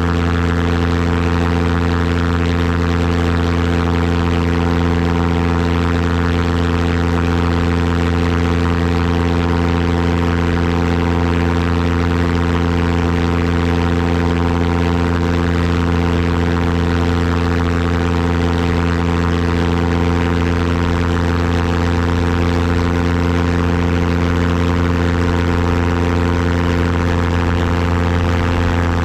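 An engine running steadily at one constant speed, its low hum unchanging throughout.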